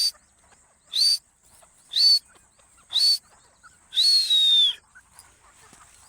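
Teetar (francolin) calling: four short, sharp notes that rise in pitch, about one a second, then a longer note about four seconds in that slides downward.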